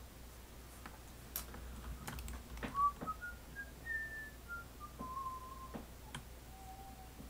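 A man whistling a short tune of single pure notes that climb and then fall back in pitch, with a few scattered clicks of keyboard keys.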